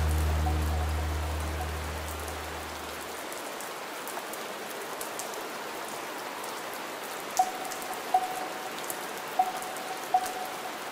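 Steady rain falling, with the last held chord of a vocal-only nasheed fading out over the first three seconds. Four short, pitched plinks come between about seven and ten seconds in.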